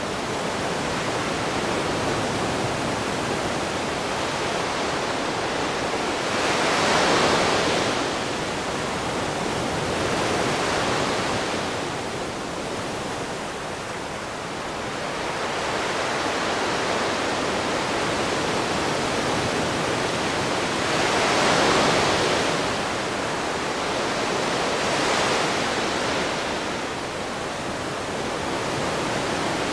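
Gentle ocean waves washing ashore: a continuous rush of surf that swells into louder breaks about four times, around a quarter of the way in, at a third, and twice in the latter part.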